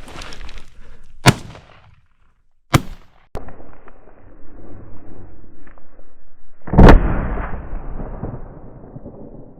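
Gunshots from a hunting gun at a hare: two sharp reports about one and three seconds in, then the loudest shot about seven seconds in, rolling away for a couple of seconds.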